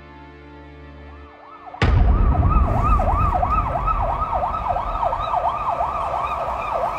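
Soft held music fades out, then about two seconds in an emergency siren starts up: a fast yelp rising and falling about three times a second, over a low rumble.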